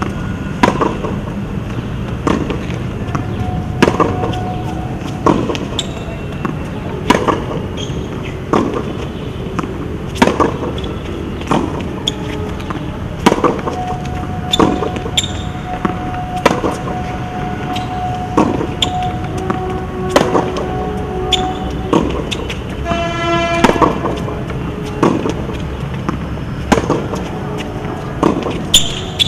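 Tennis balls struck by rackets and bouncing on a hard court in a steady baseline rally, a sharp hit about every second and a half. Steady traffic noise with vehicle horns underneath, one loud horn blast about two-thirds of the way through.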